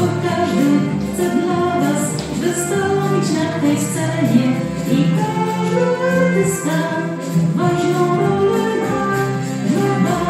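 Music: a song with singing over instrumental accompaniment and light, regular percussion.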